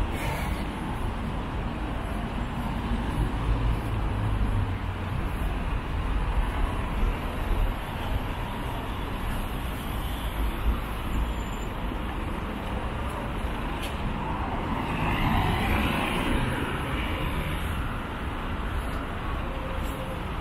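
City street traffic noise: a steady low rumble of engines and tyres, with one vehicle passing louder about three quarters of the way through.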